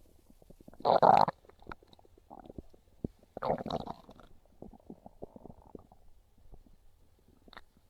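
Hungry human stomach growling: two loud rumbles about a second and three and a half seconds in, with faint clicks and small gurgles between and a short one near the end.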